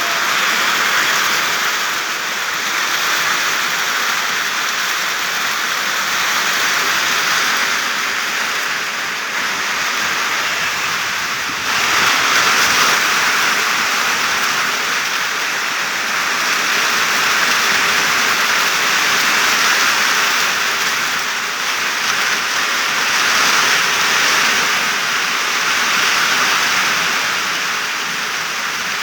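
Steady rain falling on plant leaves: a dense, even hiss of many drops that swells gently and steps up slightly in loudness about twelve seconds in.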